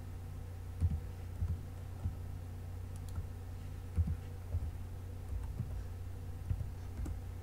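Computer keyboard keys and mouse buttons clicked now and then, about ten soft taps at irregular intervals, over a steady low hum.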